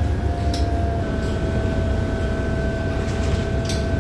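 Inside a 2018 New Flyer XDE60 hybrid articulated bus: low rumble of the Cummins ISL9 diesel with a steady whine from the Allison hybrid drive, which steps up slightly about a second in as a second, higher whine joins it.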